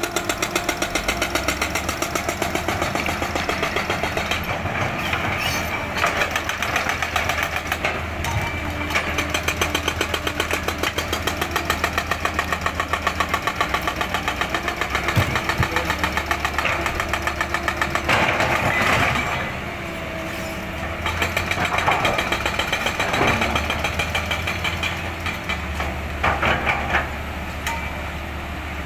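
Tracked hydraulic excavators' diesel engines running under load, pulsing steadily and getting louder and quieter as they dig. A few sharp knocks stand out now and then.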